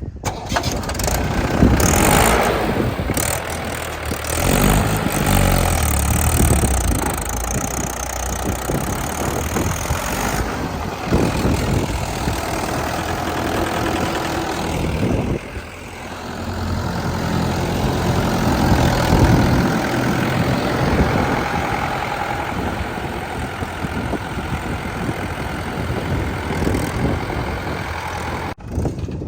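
Diesel engine of heavy earth-moving machinery running and revving, its pitch rising and falling, with a brief drop in loudness about fifteen seconds in.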